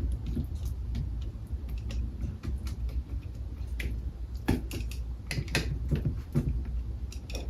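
Scattered light clicks and taps from handling small kitchen items such as a cup, lid or packaging, with a few sharper knocks about halfway through, over a steady low hum.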